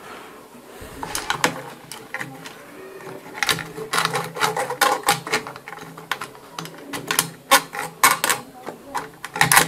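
Intel stock CPU cooler pressed down onto the motherboard by hand. Its plastic push-pins and fan housing make a run of clicks and rattles, busiest in the middle and near the end, over a faint low hum.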